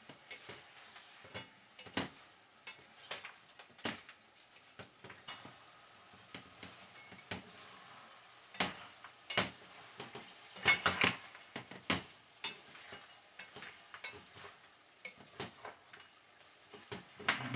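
Wooden spoon stirring goat meat in a metal pot, with irregular knocks and scrapes of the spoon against the pot over a faint sizzle of the meat frying in curry.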